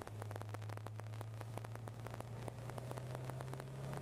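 Supercharged Corvette Z06 V8, heard from inside the cabin, pulling at low revs: a steady low drone that rises slowly in pitch as the car gains speed, over a patter of small clicks.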